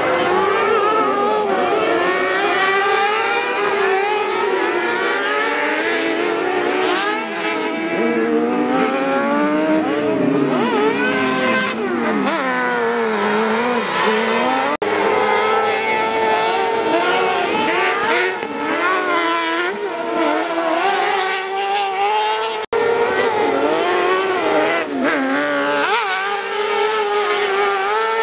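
Engines of several off-road autocross race cars revving high and easing off as they race, their pitches rising and falling over one another. The sound breaks off abruptly twice, at cuts.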